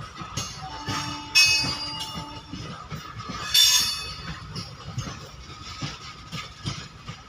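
Loaded freight wagons rolling past with a low rumble and wheel clatter. Twice, about a second and a half in and again near the fourth second, the wheels give a brief, loud, high-pitched squeal.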